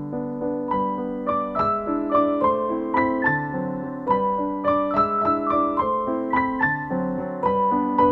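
Background piano music: a gentle melody of single notes over held lower chords, at a steady, unhurried pace.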